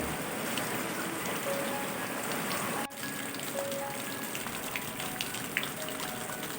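Steady rain falling, an even hiss that dips very briefly about three seconds in.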